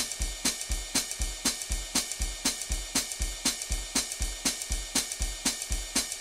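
Music: a quick, even drum beat of hi-hat and cymbal ticks over low kick-drum thumps, repeating steadily with no change.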